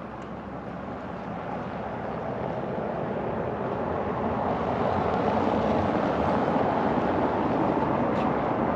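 A steady rushing noise of wind and open-air ambience that swells gradually over the first five seconds, then holds.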